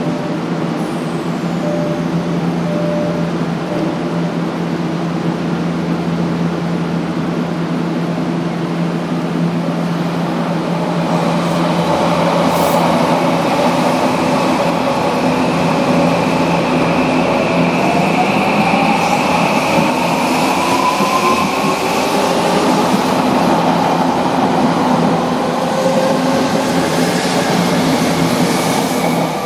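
Odakyu 1000-series electric train pulling out of a station. A steady electrical hum from the standing train gives way, about eleven seconds in, to the motor whine rising in pitch as it accelerates, with wheel-on-rail noise growing.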